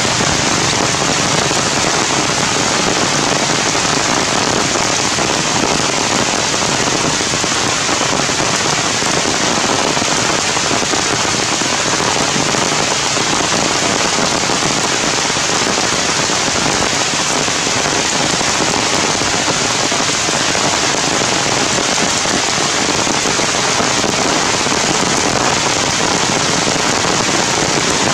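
Heavy rain falling steadily on the leaves of the forest canopy, a dense, even hiss that does not let up.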